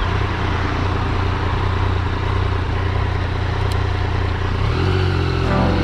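Motorcycle engine running steadily at low speed, a low hum under wind and road noise from riding.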